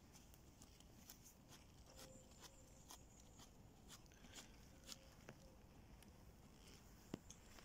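Near silence, with faint scattered ticks and crackles of footsteps on a soft woodland path.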